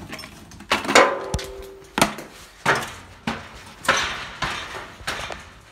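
Brisk footsteps on a hard floor, evenly spaced thuds about every two-thirds of a second.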